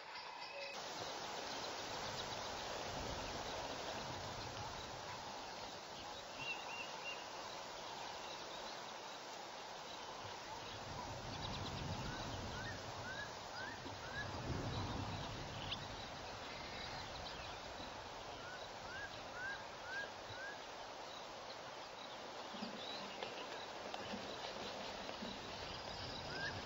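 Bush ambience: a steady hiss of insects and outdoor noise, with short runs of about five high rising chirps, heard three times, about halfway through, a few seconds later, and at the very end.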